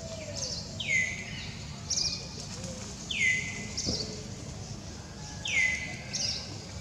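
Birds calling: a clear whistled note sweeping down in pitch repeats three times, about every two and a half seconds, with short higher chirps in between, over a steady low background noise.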